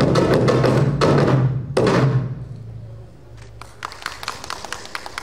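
A large Korean barrel drum beaten hard and fast with two sticks, ending with a final strike about two seconds in that rings out and fades. Light, quick wooden taps follow near the end.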